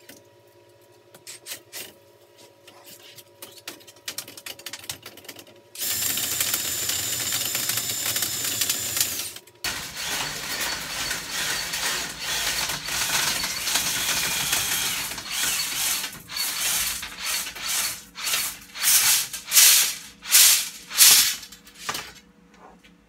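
A rotary chimney brush on flexible rods, driven by a cordless drill, scraping and rattling against the soot-lined walls of a metal stovepipe. A few faint clicks come first. The steady drill noise starts about six seconds in and is followed by continuous scraping, with a run of about five louder strokes near the end.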